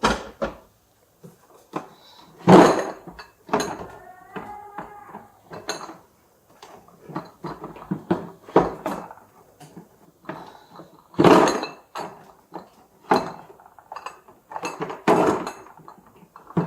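Irregular clattering and knocks of hard objects being handled, with a short pitched, voice-like sound about four seconds in.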